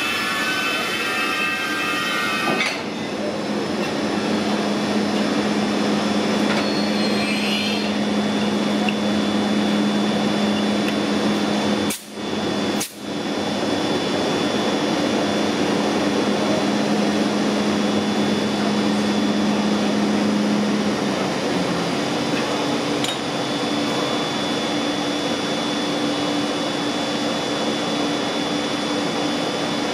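Standing ÖBB Taurus electric locomotives running with a loud, steady whirring noise and a low hum; the hum steps up in pitch about two-thirds of the way through. At the start a high whine of several tones stops after about three seconds, and the sound cuts out briefly twice around the middle.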